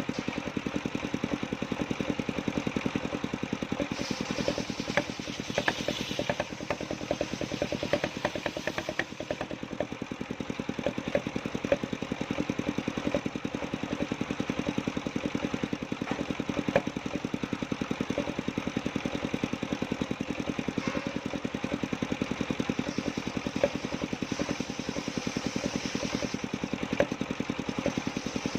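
Engine of a portable circular sawmill running steadily, with a fast even pulse and occasional sharp clicks.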